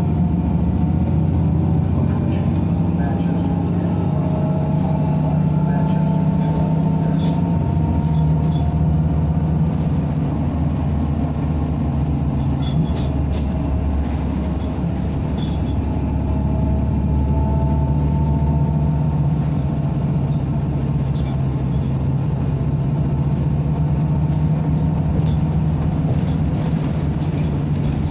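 Inside a NABI 45C-LFW city bus under way: steady engine drone and road noise, with a whine that slowly rises and falls in pitch as the bus changes speed. Light rattles and ticks come from the cabin now and then.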